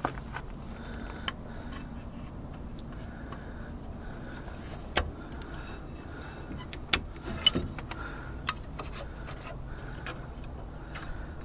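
A few sharp metal clicks and taps, scattered and irregular, as a screwdriver pries at the spring tabs of the brake cable retainer in a steel drum-brake backing plate, over a steady low background hum.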